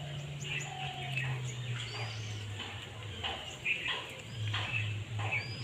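Birds chirping now and then, short scattered calls over a low steady hum.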